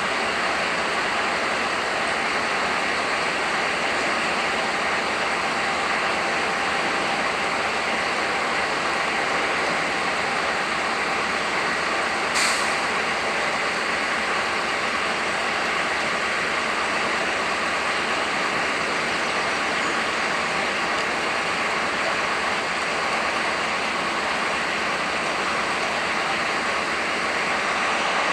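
Irish Rail Class 071 diesel locomotive's two-stroke EMD engine running as it moves slowly away, under a steady hiss, with one sharp click about halfway through.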